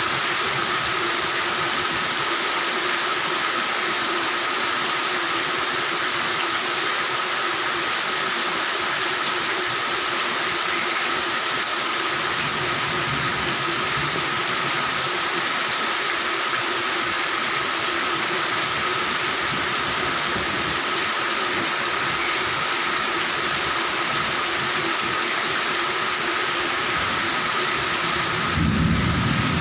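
Steady heavy rain with a continuous chorus of frogs calling on a steady pitch. A low rumble of thunder swells near the end.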